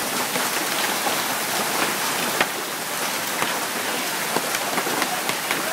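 Hail and heavy rain pelting down: a dense, even hiss dotted with many sharp ticks of hailstones striking.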